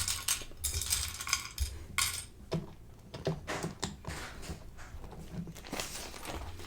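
Plastic Lego pieces clicking and clattering as they are handled and sorted, a run of irregular small clicks.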